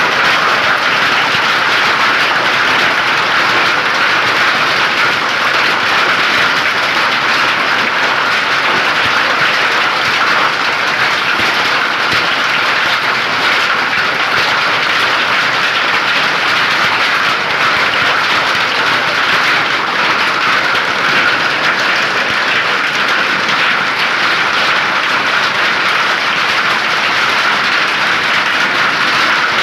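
Heavy rain and hail coming down in a hailstorm: a dense, steady, unbroken patter.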